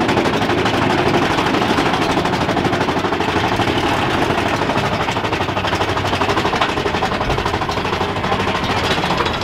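Mine-train roller coaster being hauled up a chain lift hill: a fast, steady mechanical clatter from the lift chain and ratcheting track.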